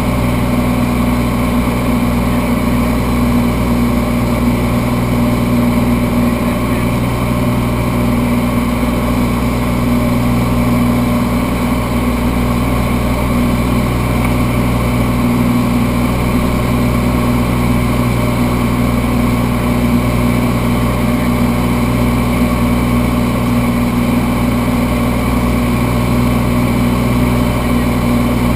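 Light single-engine airplane's piston engine and propeller droning steadily in flight, one constant pitch with no change in power.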